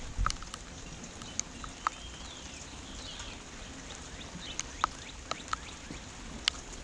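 Steady rain, with scattered sharp drips landing close by. A few faint bird chirps come about two to three seconds in.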